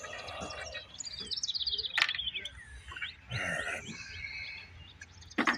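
Small birds chirping and trilling in quick runs of high notes, with a sharp metallic clank about two seconds in and another knock near the end from a socket being worked on the engine's flywheel nut.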